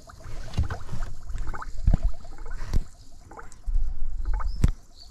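Water and antifreeze gurgling and bubbling in a boat motor's water-cooling hoses and reservoir as the circuit is filled, with dull knocks and bumps from the hoses being handled, loudest about two seconds in and again near the end.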